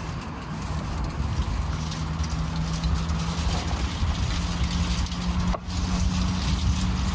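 An engine running steadily, a low hum with a deeper rumble under it, over outdoor background noise.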